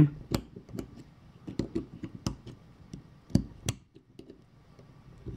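Irregular small metallic clicks and taps as a securing pin is pressed into a 1920s NSU bicycle hub by hand with a small tool.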